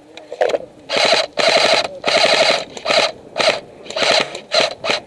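M16-style airsoft electric rifle firing full-auto bursts, a rapid mechanical buzz of shots from its gearbox. The first bursts, starting about a second in, each last about half a second, and shorter bursts with brief pauses follow toward the end.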